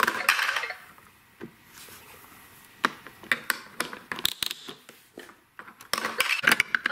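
Hard plastic of a VTech Sit-to-Stand Ultimate Alphabet Train clicking and tapping as it is handled and its hinged picture pages are swung, with a quick run of clicks near the end.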